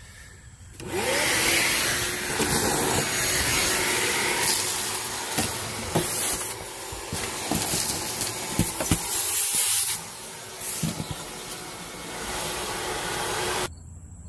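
Wet/dry shop vacuum running, sucking dirt and rust debris off a truck's cab floor, with scattered clicks as debris goes up the hose. It starts about a second in and cuts off suddenly near the end.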